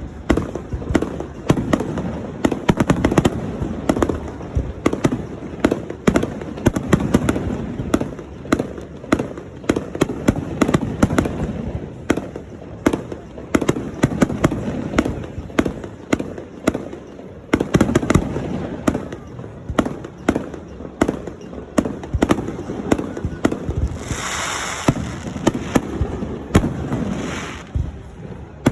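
Fireworks display: aerial shells going off in rapid, near-continuous bangs and booms. Near the end comes a brief burst of higher hissing.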